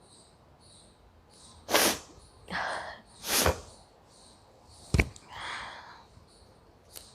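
A woman sneezing twice, about a second and a half apart, with a sharp breath drawn between; the sneezes are set off by a bay leaf tickling her nose. A sharp click comes about five seconds in, followed by another breath, while crickets chirp faintly throughout.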